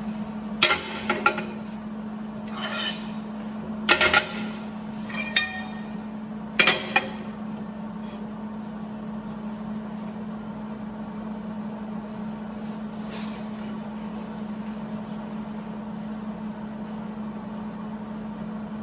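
Steel frame pieces being set into a metal welding fixture: a string of sharp clanks and clinks, one ringing briefly, in the first seven seconds. After that only a steady low hum remains.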